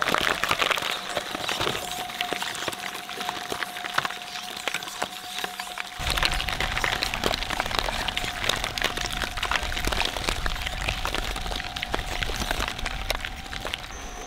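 Twin-shaft shredder's steel cutter discs crunching through a blue object, a dense run of cracks and snaps over the machine's steady hum. A low rumble joins about six seconds in.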